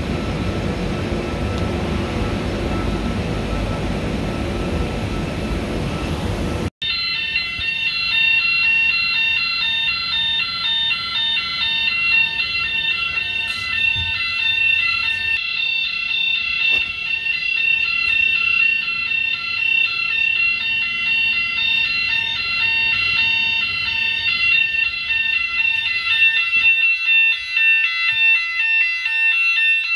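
Steady machinery and ventilation noise in a shipbuilding hall. About seven seconds in it gives way abruptly to a loud, high-pitched electronic alarm sounder aboard a warship, pulsing rapidly and continuously.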